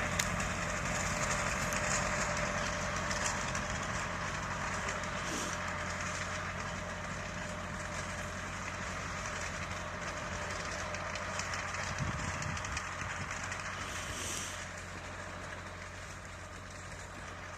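T-70 crawler tractor's engine running steadily as the tractor pulls away with a load of skidded logs, growing gradually fainter.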